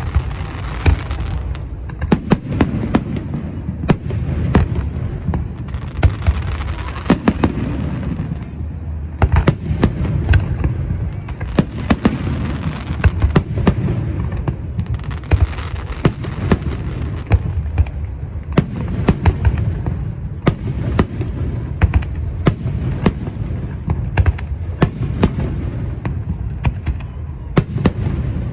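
Aerial fireworks display: many sharp bangs going off in quick, irregular succession over a continuous low rumble, with stretches of crackling hiss between them.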